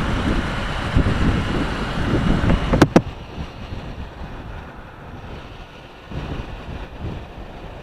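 Wind rushing over the microphone of a moving motorcycle, with the engine running underneath. Two sharp clicks come about three seconds in, after which the noise drops to a lower level.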